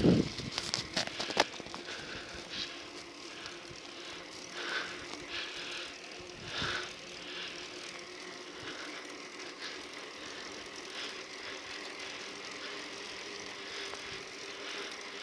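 Bicycle rolling along an asphalt road: a steady faint hum of the moving bike with a light hiss, and a few clicks and knocks in the first second or so.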